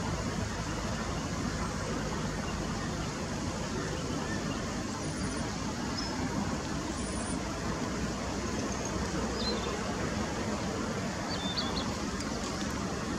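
Steady rumble of road traffic, with a few faint, short, high bird chirps scattered through it.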